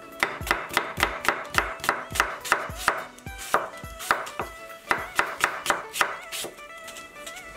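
Chef's knife slicing an apple thinly on a wooden cutting board, the blade knocking the board about three to four times a second. The strokes come in two runs with a short pause near the middle and stop about a second before the end.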